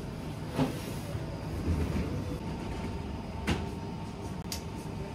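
Steady low rumble inside a vehicle, with three sharp knocks or clicks and a faint steady tone that comes in about halfway.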